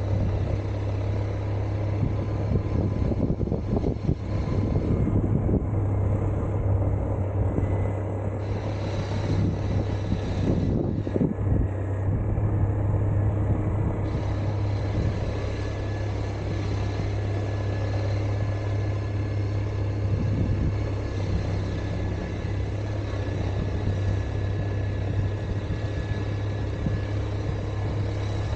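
Suzuki Burgman 650 maxi-scooter's parallel-twin engine running steadily, a constant low hum, with road noise as the scooter rolls along at low speed.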